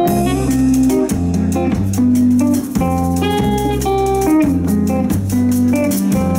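Live band playing a song's instrumental intro: electric guitar, bass guitar and drum kit over a steady beat, with a melody of held notes on top.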